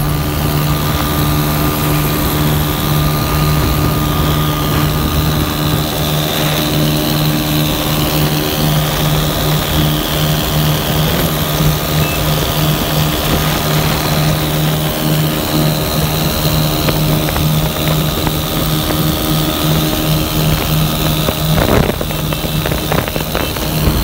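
Honda 125 single-cylinder four-stroke motorcycle engines running hard at a steady speed, heard from a moving motorcycle with air rushing past the microphone. The engine note holds one even pitch throughout.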